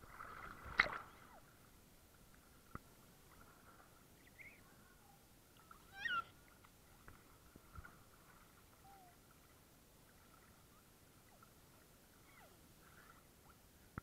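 A baby squeals briefly twice, near the start and about six seconds in. A sharp knock comes near the start, and a few small clicks follow, over a faint steady thin tone.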